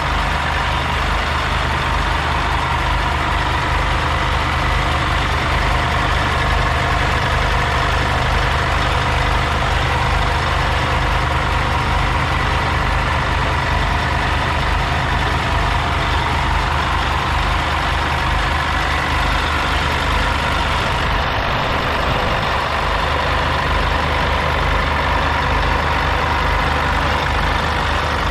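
Scania N250UD bus's five-cylinder 9-litre diesel engine idling steadily, heard close up at the open rear engine bay, with a steady high whine over the low engine drone.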